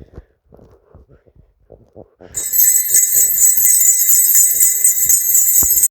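Faint soft thumps, then about two seconds in loud jingle bells start shaking steadily and cut off suddenly at the end.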